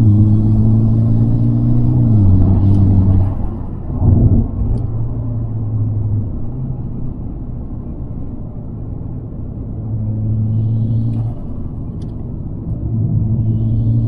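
Interior sound of a Mitsubishi Lancer Evo X's 2.0-litre turbocharged four-cylinder engine driving uphill: a steady engine note whose pitch falls about two seconds in, a brief thump about four seconds in, a quieter stretch off the throttle, then the engine pulling again near the end.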